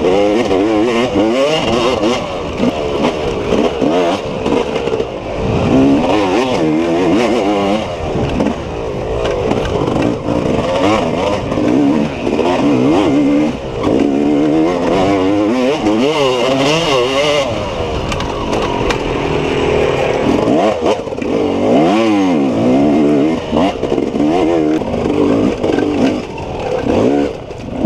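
Off-road dirt bike engine revving hard, its pitch swinging up and down every second or so as the throttle is worked and gears change while riding.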